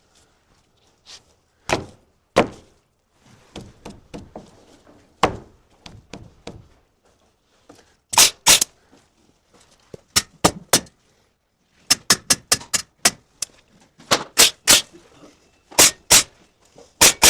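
Hammer blows on the wooden framing of a door rough opening: a few spaced knocks, then quicker runs of strikes at about three a second in the second half, growing denser toward the end.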